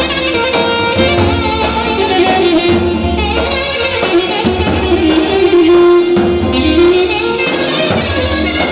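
Music with instruments carrying a melody over drums and bass.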